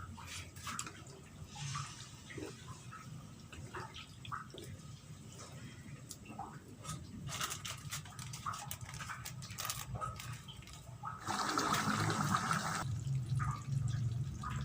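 Jackfruit rendang in coconut milk simmering in the pan, with scattered small pops and clicks over a low hum. A louder rushing noise lasts about a second and a half, starting about eleven seconds in.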